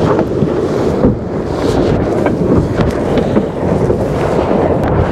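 Strong wind buffeting the microphone over the rush of water along a J70 sailboat's hull as it sails fast close-hauled, with short splashes of spray now and then.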